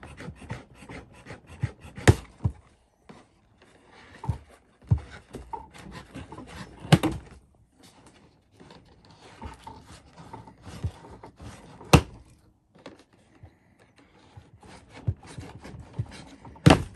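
Irregular clicks and scrapes of plastic zip ties being cut with a blunt knife and the cardboard box being handled, with several sharp knocks a few seconds apart.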